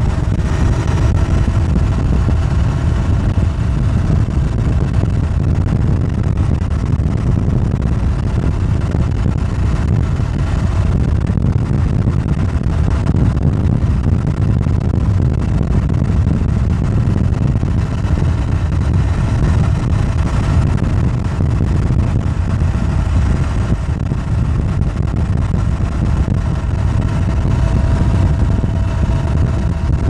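Wind buffeting the microphone, with road noise, on a moving bicycle during a ride: a loud, steady low rumble with no breaks.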